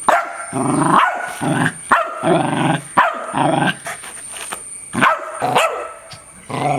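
A dog barking repeatedly in short, sharp barks, a quick run of them, then a pause, then a few more barks about two-thirds of the way through.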